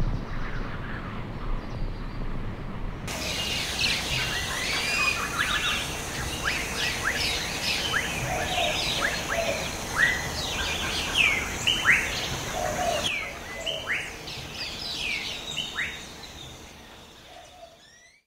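A low, steady city rumble of distant traffic gives way suddenly, about three seconds in, to many birds chirping and singing with quick whistled and sweeping notes over a steady hiss. The birdsong fades out near the end.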